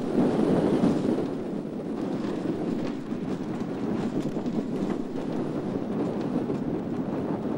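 Arrow Dynamics steel roller coaster train running along its tubular track at speed, its wheel noise mixed with wind buffeting the on-ride microphone; loudest in the first second, then steady.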